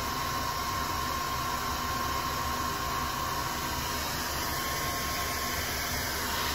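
Hand-held hair dryer running steadily, a constant rushing blow with a faint steady whine.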